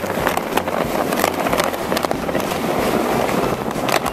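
A plastic sled being towed across an icy road: a continuous rough scraping noise with many small knocks and rattles. Under it run a steady low vehicle drone and wind on the microphone.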